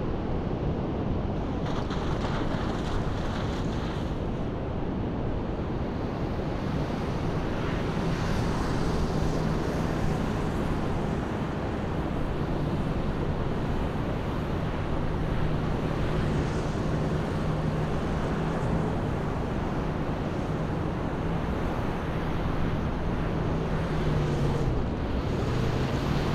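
First-generation Toyota Tundra V8 pickup driving: steady road and wind noise with a low, even engine hum that dips briefly near the end.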